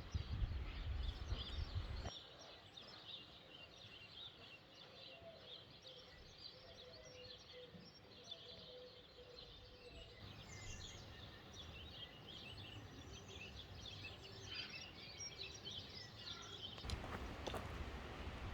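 Birds chirping and calling, a busy mix of many short high calls, faint over a steady hiss. A low rumble sits under them for the first two seconds and comes back near the end.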